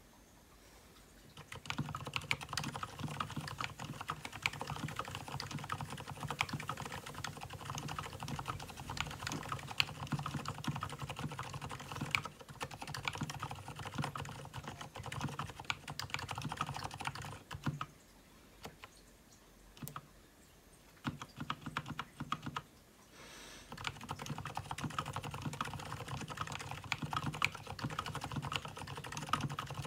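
Fast, continuous typing on an Mstone Groove T87A tenkeyless mechanical keyboard fitted with tuned Gateron silent brown switches: a dense run of key strokes. It starts about a second and a half in, thins out twice for a moment a little past the middle, then picks up again.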